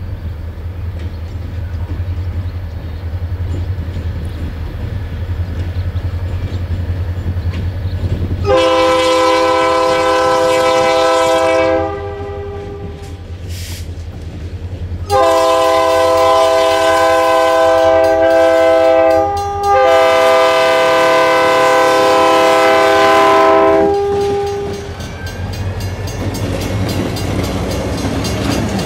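Canadian National diesel freight locomotive approaching with its engine rumbling, then sounding its multi-chime air horn for a road crossing: a long blast about 8 seconds in, a pause, then a longer blast broken once briefly midway, each a chord of several tones. Near the end the locomotives pass close by, engines and wheels on the rails getting louder.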